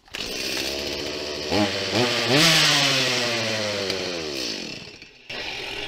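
Warm Stihl two-stroke chainsaw started with the choke lever at the "1" position, catching at once and running. It is revved up about a second and a half in to a high whine, then winds down over a couple of seconds. It cuts out briefly near the end and then runs on at a low steady level.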